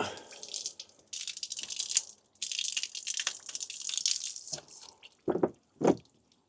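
Water splashing with some rattling, in two stretches of about two seconds each with a short break between. Near the end come two short dull knocks.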